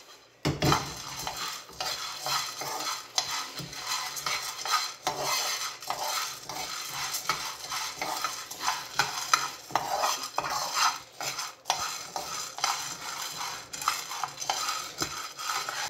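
Metal spoon stirring coffee beans in a dry frying pan: continuous scraping of the spoon on the pan with the rattle of the beans, dense small clicks throughout, the beans dry-roasting partway toward a darker roast. A sharp clatter about half a second in.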